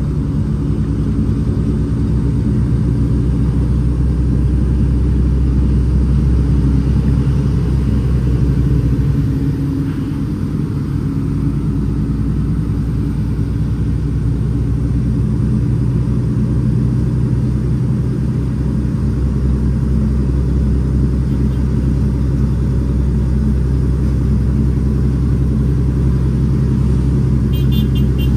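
Cummins ISX 525 hp diesel engine of an International ProStar dump truck running steadily under a full load of about 32 tons of gravel, heard from inside the cab. It dips briefly about ten seconds in, then carries on.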